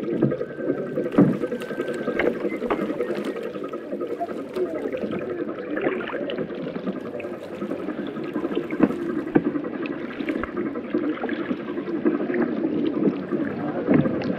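A chorus of many men's voices chanting together over sloshing water, with scattered sharp knocks of wood, such as oars against the boats.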